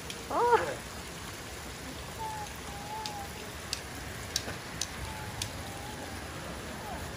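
Steady hiss of water, with a short pitched call about half a second in and a few faint sharp clicks in the middle.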